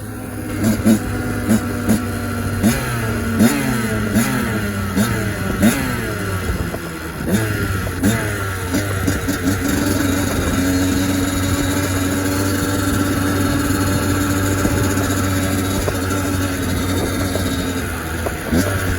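Kawasaki KX85 two-stroke dirt bike engine, freshly rebuilt, being ridden. It revs up and drops back over and over for the first several seconds, holds a steady high pitch for several seconds, then revs again near the end.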